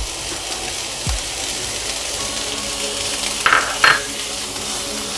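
Boiled chopped green beans and peas sizzling in oil with grated carrot in a non-stick pan as they are stirred with a spatula, a steady hiss. There is a low thump about a second in, and two short spatula scrapes about three and a half seconds in.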